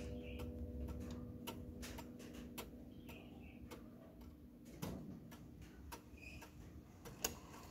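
Antique German pendulum wall clock ticking, about two ticks a second, while the ring of its coiled gong fades away over the first couple of seconds. A soft knock about five seconds in and a sharp click near the end come from the hands being turned by hand.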